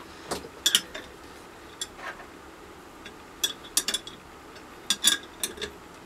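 Irregular sharp metallic clicks and clinks, coming in small clusters of two or three, as the bolts of a homemade leather embossing press are tightened with a metal tool.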